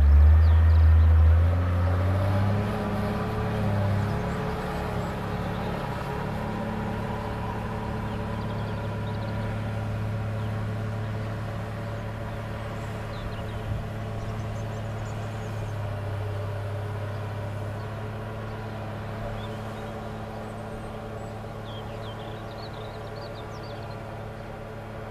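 Volvo L60E wheel loader's diesel engine, loud and close at first as the loader pulls away, then settling into a steady drone as it climbs and works the maize silage clamp, slowly getting quieter as it moves off.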